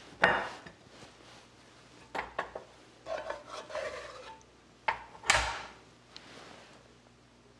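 Kitchen utensil knocking and scraping against a pot and serving plate as braising sauce is spooned over sliced pork: a handful of sharp clinks with softer scraping between, the loudest knock a little past five seconds in.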